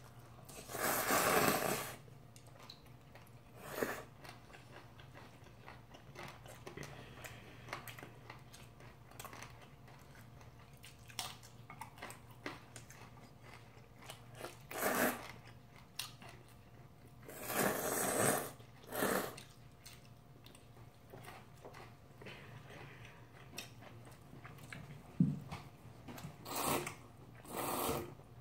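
Close-miked slurping of instant ramyun noodles: several long slurps of a second or two each, near the start, around the middle and near the end. Quieter chewing and small clicks come between them.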